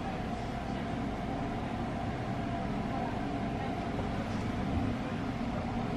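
Steady low hum and hiss of room tone, with a faint steady tone running through it and no distinct events.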